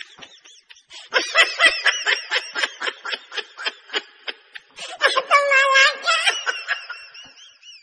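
Rapid snickering laughter, about five short bursts a second, with a longer held laugh about five seconds in.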